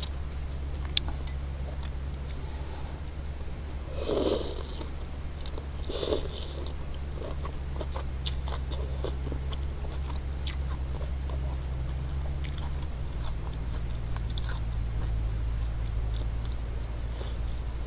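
Close-up eating sounds of chewing noodles and beef, with small mouth clicks and two louder mouthfuls about four and six seconds in, over a steady low hum.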